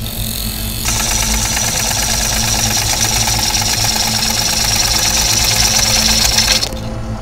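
Wood lathe spinning a birch bowl blank, its motor humming steadily, while a turning tool cuts into the wood with a dense hissing scrape. The scrape starts about a second in and cuts off suddenly near the end as the tool comes off the wood.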